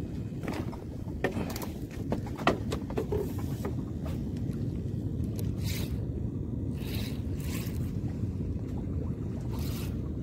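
Steady low rumble of wind and water around a small fishing boat at sea, with scattered sharp clicks in the first few seconds and a few short rushing scuffs later as a spinning rod and reel are handled.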